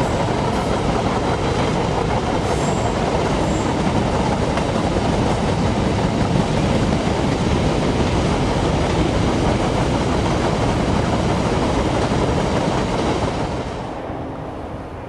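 Empty grain hopper wagons rolling past close by, a loud steady rumble and rattle of steel wheels on the rails. The noise drops away sharply near the end.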